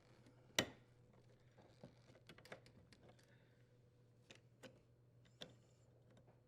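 A few light clicks and taps from small parts being handled at the dishwasher's electrical junction box as the wire strain relief nut is secured, the sharpest about half a second in. Otherwise near silence.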